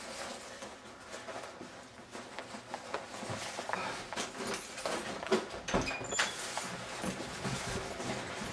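Scattered knocks, clicks and rustling of someone moving about and handling things in a small room, busier and louder from about three seconds in.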